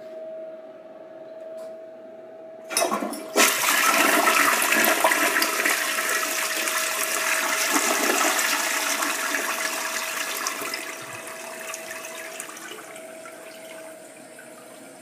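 2002 Crane Plumbing Galaxy toilet flushing: a loud rush of water starts suddenly about three seconds in and swirls down the bowl. It tapers off over several seconds to a quieter hiss near the end, a good strong flush.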